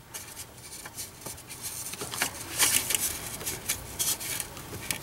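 Taped, soldered wire splice being pushed by hand into a small drilled hole in a window frame: irregular scratching and rubbing with small clicks, busiest in the middle. The wire is hard to push in.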